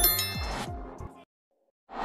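A bright notification-bell ding from a subscribe-button animation, ringing out over background music with a steady low beat. The music stops about a second in, and a short rush of noise starts right at the end.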